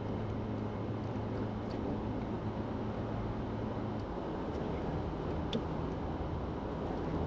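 Steady road and engine noise heard from inside a moving car's cabin at cruising speed. A low engine hum fades about four seconds in, leaving the even rumble of the tyres on the road.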